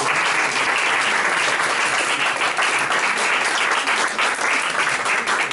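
Audience applause: many people clapping together, loud and steady.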